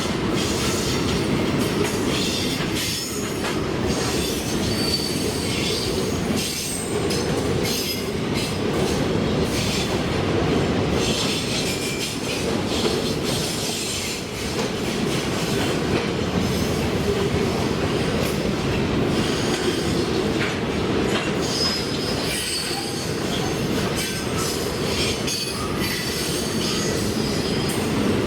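Freight train wagons rolling past on the track: a steady rumble of steel wheels on rail with short, high wheel squeals now and then.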